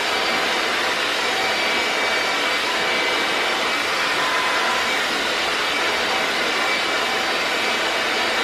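Handheld hair dryer running steadily on the hair: a constant rush of air with a faint steady whine, used to blow out and stretch 4C hair.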